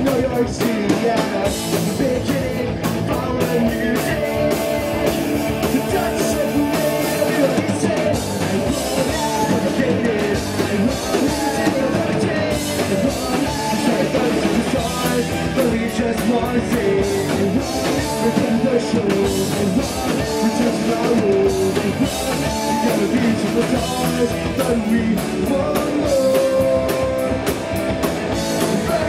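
Pop-punk band playing live: a singer over distorted electric guitars and a drum kit, loud and without a break.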